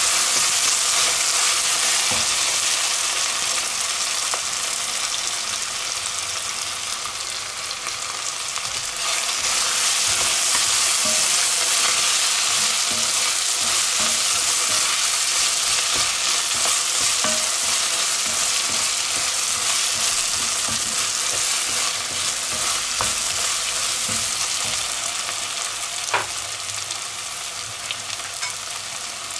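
Chopped soup vegetables, onion, garlic and tomato paste sizzling steadily in hot clarified butter in a cocotte, being roasted, while a wooden spatula stirs them with small scraping clicks against the pot.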